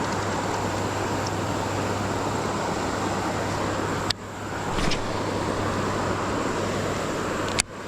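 Steady rush of a creek running high after heavy rain, an even hiss of flowing water that breaks off briefly about four seconds in and again near the end.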